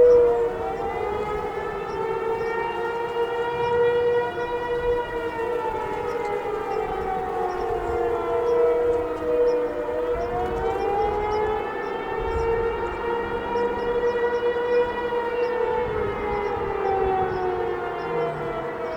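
Outdoor tornado warning sirens sounding together, a Federal Signal 508 and an Eclipse 8. One holds a steady wail while others slide slowly up and down in pitch, the rise and fall repeating about every ten seconds.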